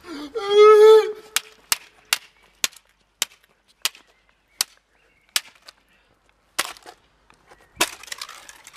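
A brief shout, then a string of sharp hard clacks as a small plastic remote-control car is kicked and knocked about on paving stones, the hits coming further and further apart.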